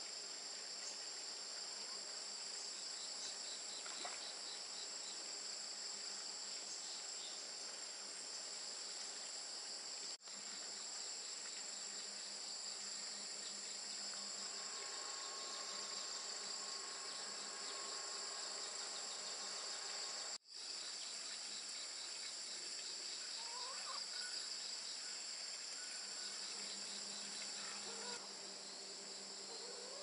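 Steady high-pitched chorus of insects chirring in the surrounding forest, briefly cut off for an instant twice.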